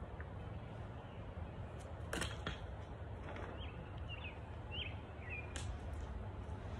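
Backyard ambience with a steady low rumble, a sharp crackle about two seconds in and another near the end, and a small bird giving about five short chirps in between.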